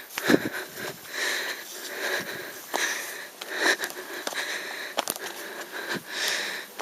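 Hard, heavy breathing of a person hiking briskly up a steep trail, one breath about every second or so, with footsteps on the path.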